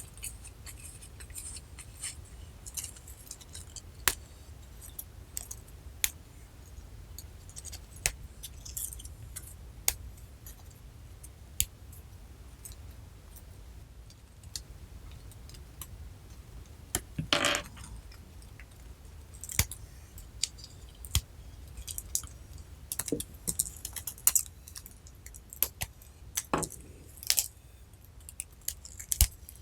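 Close-up handling sounds of slime-making: scattered sharp clicks, taps and crinkles as materials are worked into slime, growing busier near the end, with one longer, louder sound about halfway through.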